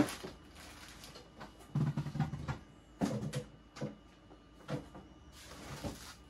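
Faint, scattered knocks and rustles of a person moving about and handling things on a concrete floor, with clusters of small noises about two and three seconds in.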